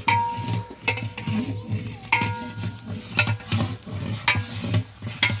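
Long metal ladle scraping and knocking against the sides of a large metal daig as the chicken and onion-tomato masala is stirred, roughly one stroke a second, the pot ringing briefly after each stroke.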